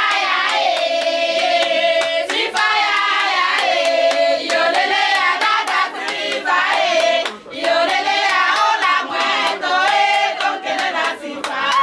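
A group of women singing together in unison, with rhythmic hand-clapping throughout.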